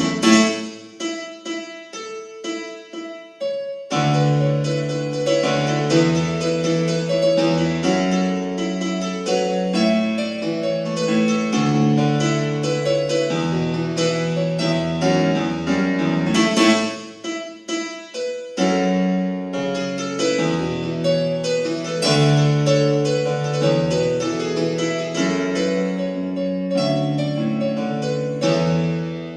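Casio CDP-S150 digital piano playing a piece with a bass line under the melody, thinning out briefly at the start and again about seventeen seconds in.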